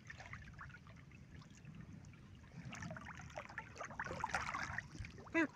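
Otters swimming and playing in shallow ditch water: light splashing and sloshing, getting busier about halfway through, with a short pitched call near the end.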